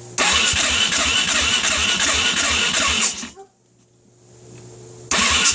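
2008 Suzuki LTR 450's single-cylinder engine being cranked on its electric starter without firing, in a steady pulsing rhythm for about three seconds. It stops, then cranks again near the end. The engine turns over but won't catch on electric start, though it runs when pull-started.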